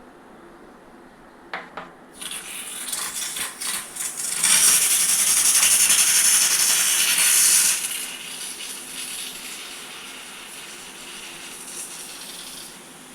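Pressure cooker venting steam. A sputtering, rattling hiss starts about two seconds in, then becomes a loud steady hiss for about three seconds, drops to a weaker hiss and stops near the end.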